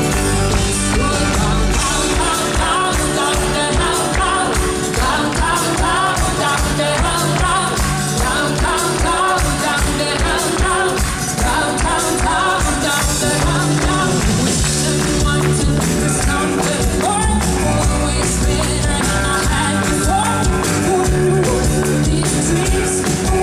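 Live folk-rock band playing a song: a woman sings the lead over strummed acoustic guitar, electric guitars, drums and keyboards, with a steady beat.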